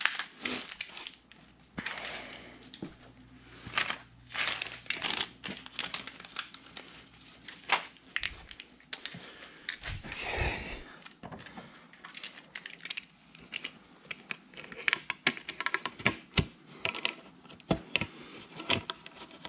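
Handling noise as hands work plastic parts and hoses on an ATV: rustling and crinkling with irregular clicks and light knocks, and a longer rustle about ten seconds in.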